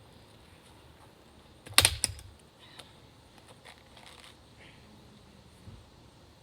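Two or three sharp cracks about two seconds in, then faint scattered ticks, as the fibrous husk of a green coconut is pried and torn off with hand tools.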